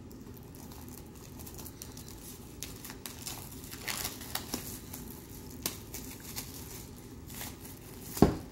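Plastic shrink wrap being peeled off a DVD case, crinkling irregularly, with one sharp click near the end.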